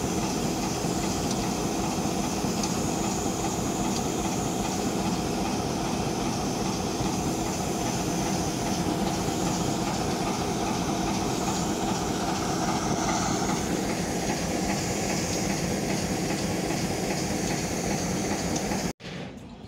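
Diesel engine of a railway recovery train running steadily close by, a dense continuous drone that cuts off abruptly just before the end.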